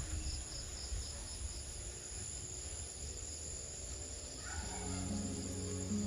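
Crickets and other insects trilling steadily in a continuous high chorus, with a pulsing chirp under it. Low steady tones join about two-thirds of the way through.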